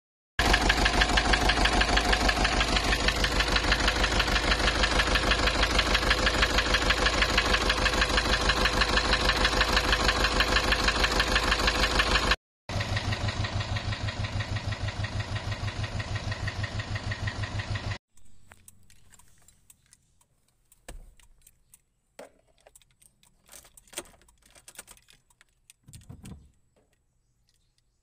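Nissan ZD30 four-cylinder diesel idling roughly with a regular pulsing beat, about six or seven pulses a second. It is heard first in the engine bay and then more quietly at the tailpipe. The rough idle and white smoke are put down to lost compression. After about 18 seconds the engine sound is gone, leaving only faint clicks and knocks.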